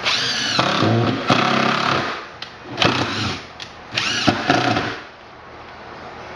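Cordless drill driving screws into wood blocking: one run of about two seconds with the motor whining up in pitch, then two short bursts a second or so apart.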